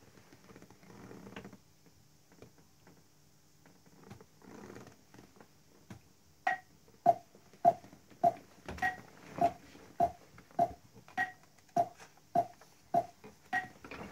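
Metronome clicking at 102 beats per minute, about six and a half seconds in, with a higher accented click on every fourth beat, counting in the song's tempo. Before it starts, faint paper rustling.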